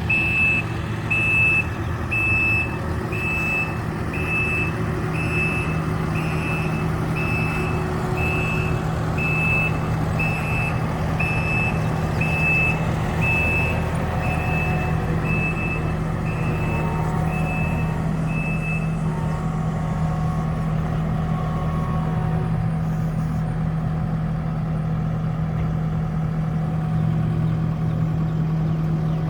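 Kubota SVL-75 skid steer's diesel engine running steadily under a backup alarm that beeps about once a second while the machine reverses. The beeping stops about 19 seconds in, and the engine runs on.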